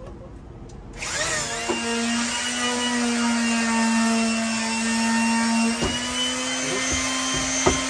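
Corded electric detail sander switching on about a second in, spinning up, then running steadily while sanding a wooden roosting bar. There are two sharp knocks near the end.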